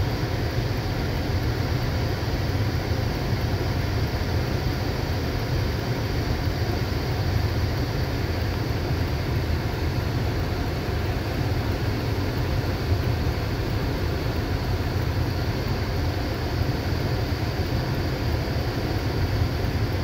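Strong storm wind blowing hard against the microphone, a steady low rumbling rush with no letup.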